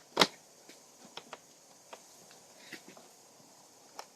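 One sharp knock, then a few faint clicks and taps as vinyl siding and tools are handled.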